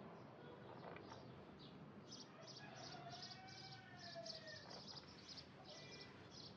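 Faint outdoor birdsong: small birds give short, high chirps over and over. In the middle a distant rooster crows once, a call of about two seconds that rises and then falls.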